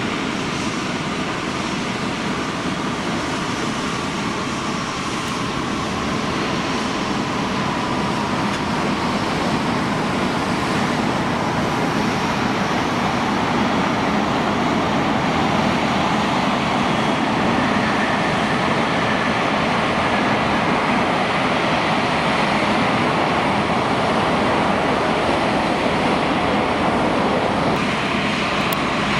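Jet airliner engines: a steady rush of noise with a faint whine, growing slightly louder around the middle.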